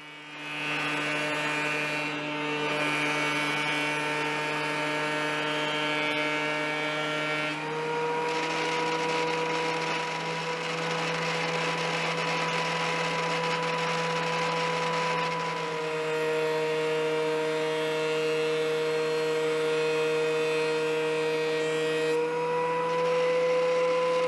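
DeWalt benchtop thickness planer running with a steady whine as a maple board is fed through, skimming off the old finish. The whine steps in pitch a few times, with a rougher, noisier stretch in the middle of the cutting.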